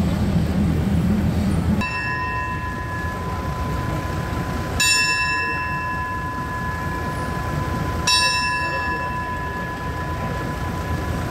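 A station's hand bell hanging on a platform pillar is struck three times, about three seconds apart, and each strike rings on with a clear, bright tone. This is the Thai railway station bell signal for the train's departure. Before the first strike the low rumble of the waiting train is heard.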